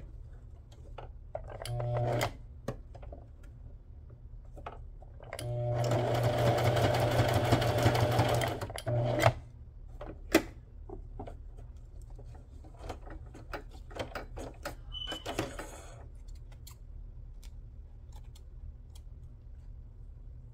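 Brother electric sewing machine stitching through paper in short runs: a brief burst about two seconds in, a longer run of about three seconds in the middle, and a short burst right after. Then scattered light clicks and handling.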